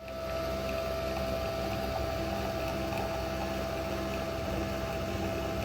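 A motor running steadily: a constant hum with a held tone over it.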